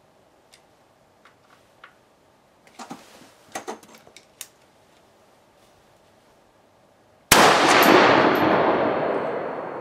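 A single shot from an M14-pattern semi-automatic rifle about seven seconds in: loud and sudden, with a long echo that dies away over the next two seconds or more. Before it, a few light clicks and knocks.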